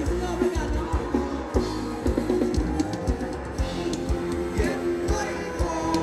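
Live band playing an upbeat Thai ramwong dance song: a steady drum-kit beat with bass, guitar and a singer.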